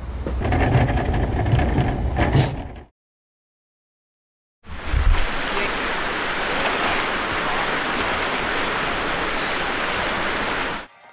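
Pickup truck driving along a dirt track, a low rumble with scattered knocks and rattles. After a short gap comes the steady rush of the Arkansas River running over rocks, which cuts off suddenly near the end.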